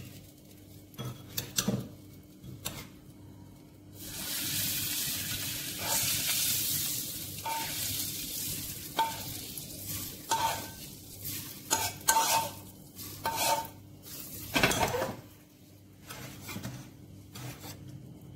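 Hot mustard oil poured from a kadhai sizzles as it hits raw turmeric pickle in a ceramic bowl, from about four seconds in until about fourteen seconds. A steel spoon stirring the pickle clicks and clinks against the bowl throughout, some clinks ringing briefly, with one louder knock near the end of the sizzle.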